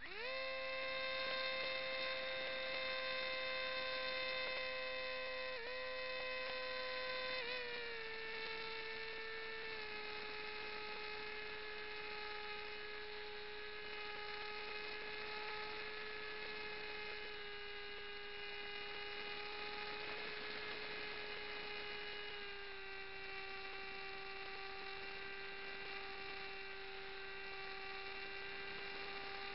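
Model aircraft motor and propeller whining, heard from a camera on the wing. It spins up sharply at the start, holds a steady pitch, then steps down in pitch several times: twice between about 7 and 10 seconds in, and again about 22 seconds in.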